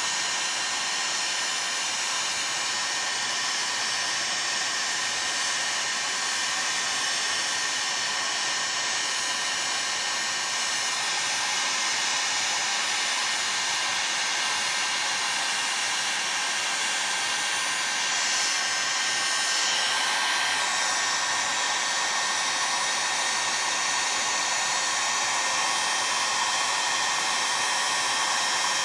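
Heat gun blowing steadily, heating an aluminium chainsaw crankcase so the tight bearing bore expands to take the crankshaft bearing.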